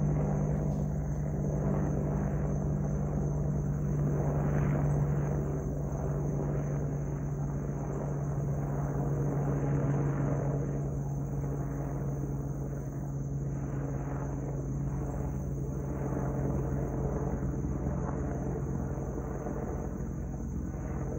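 Boeing AH-64E Apache Guardian attack helicopter flying overhead, a steady low drone of rotor and turbine that slowly fades as it moves off.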